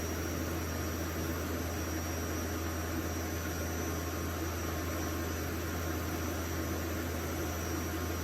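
Kotech KDP diesel-driven portable screw air compressor running steadily with its discharge valve closed, the engine holding just above idle: a steady low hum with a hiss over it.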